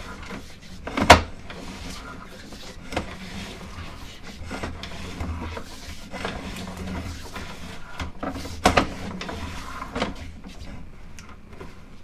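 Sewer inspection camera's push cable and reel being worked: irregular knocks and sliding rattles over a low steady hum, the loudest knocks about a second in and near nine seconds.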